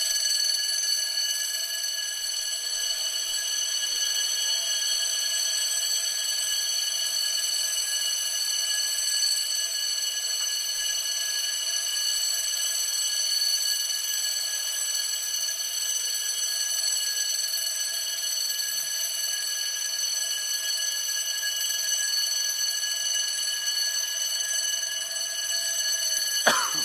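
Fire alarm going off continuously: a constant ringing, one steady high-pitched tone sounding at several pitches at once, unbroken and unchanging.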